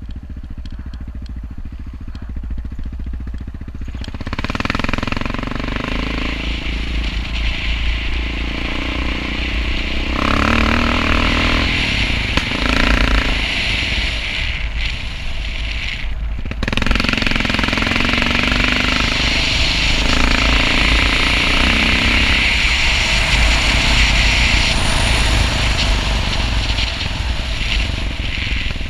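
Yamaha XT660R's single-cylinder four-stroke engine running under way, with wind noise over the microphone. It is quieter for the first few seconds, then runs louder and harder from about four seconds in, with a short dip just past halfway.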